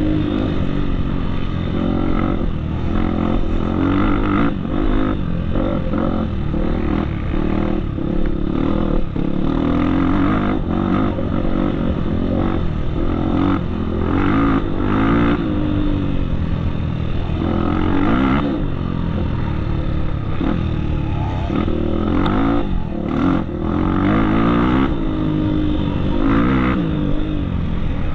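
Off-road trail motorcycle engine running under way, its revs rising and falling again and again, with scattered knocks and rattles.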